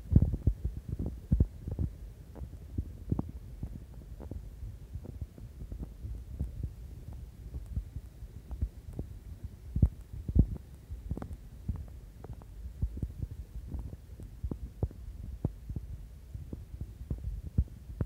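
Low rumbling with irregular soft thumps on the phone's microphone, a few a second, the strongest near the start and about ten seconds in: microphone buffeting and handling noise while walking outdoors.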